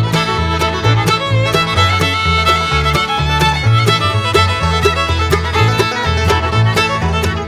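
Upbeat bluegrass music with fiddle, banjo and guitar over a walking bass line and a steady beat.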